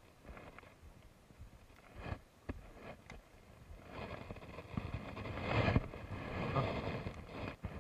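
Scattered light knocks and clicks as fishing tackle is handled in a small boat. About four seconds in, a louder rustling of cloth rubbing against the microphone starts and lasts about three seconds.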